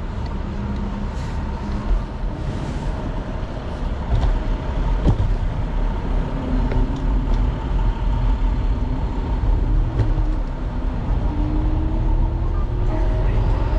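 City street traffic heard from a moving electric scooter, with a heavy steady rumble of wind and road on the handlebar-mounted microphone. A rising tone comes in near the end.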